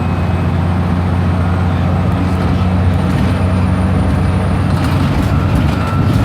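Scania OmniDekka double-decker bus engine running at a steady speed, a low even hum heard on board the bus.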